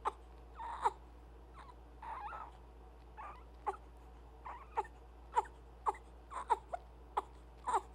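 Baby with hiccups fretting in short whimpering cries, each a brief falling note, coming about every half second to a second.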